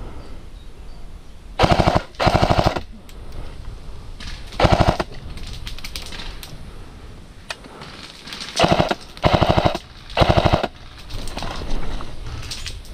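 A&K PKM airsoft electric machine gun firing six short full-auto bursts, each a fast buzzing rattle of rapid shots lasting half a second to just under a second: two close together near the start, one in the middle, and three more in quick succession later on.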